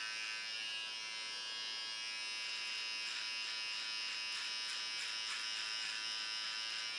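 Electric hair trimmer buzzing steadily as it is run along the hairline around a man's ear.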